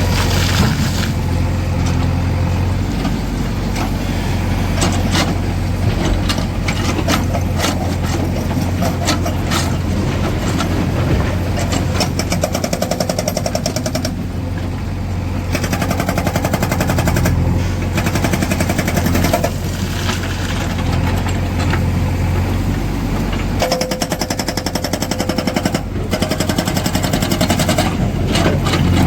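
Hydraulic rock breaker on a Tata Hitachi Shinrai backhoe loader hammering stone in rapid, evenly spaced blows that come in several stretches, over the steady hum of the loader's diesel engine.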